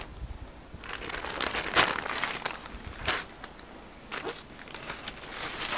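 Sarees being handled and unfolded, rustling in several short bursts.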